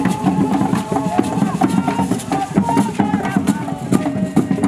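Traditional Anlo Ewe drumming and percussion played live, with men singing along in held, chanted notes over a busy pattern of drum strokes.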